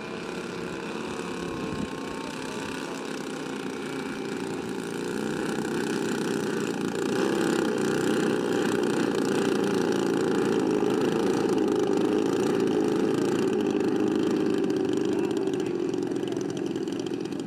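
Twin engines of a giant-scale radio-controlled Grumman S-2 Tracker model running at low throttle as it taxis. The steady hum grows louder as the plane comes close and passes, then eases off near the end.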